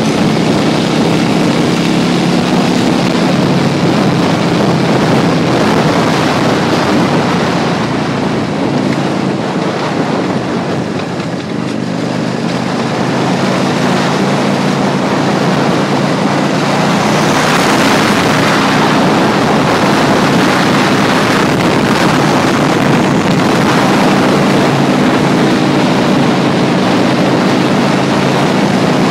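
Wind rushing over the microphone of a moving motorcycle, with the engine's steady hum underneath. The noise eases for a few seconds about ten seconds in, then builds again.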